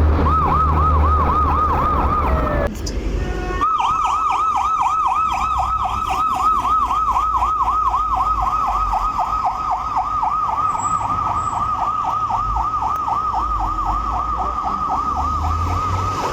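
Ambulance electronic siren on the yelp tone: a fast rising-and-falling wail about four times a second. It breaks off briefly about three seconds in, then runs on steadily. A low vehicle rumble lies under it at the start.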